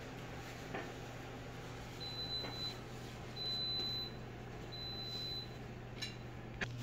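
Three steady, high-pitched electronic beeps from a household appliance, each about half a second long and spaced about a second and a half apart, over a steady low hum.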